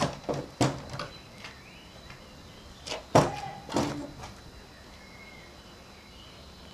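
Wooden stable stall door being opened and handled. It gives a couple of knocks and clanks at the start and another group about three seconds later.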